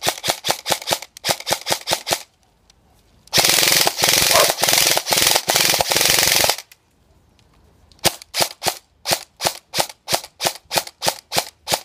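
VFC PDW electric airsoft gun (AEG), running on an 11.1 V LiPo battery, firing. First comes a quick string of shots for about two seconds. After a pause there is an unbroken full-auto burst of about three seconds. After another pause come steady separate shots, about four or five a second, to the end.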